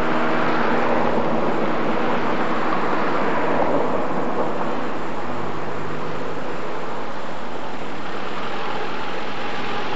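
Steady rushing noise of a vehicle driving slowly along a street, level and unbroken throughout.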